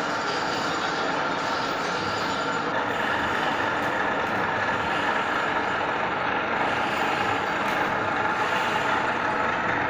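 Plano milling machine running: a steady mechanical hum with a constant high whine.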